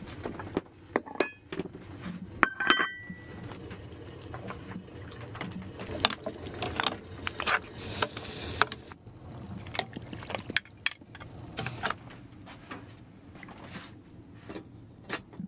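Kitchen and tableware sounds: a dish or spoon clinks with a short ringing tone about two and a half seconds in, among scattered knocks, then a ladle stirs and scoops liquid in a metal pot of stew.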